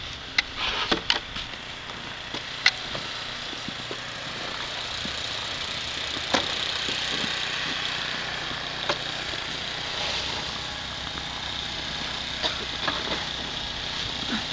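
An engine running steadily, with a few short clicks or knocks over it.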